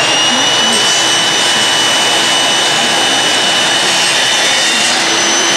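A table-mounted power saw with a dust-extraction hose running steadily while a board is fed into the blade: a loud, even, high-pitched motor whine over a rushing noise.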